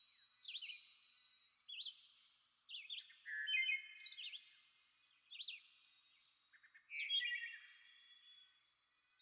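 Birds chirping: short, sharp high calls repeated about once a second, with louder bursts of calling around the middle and again about seven seconds in.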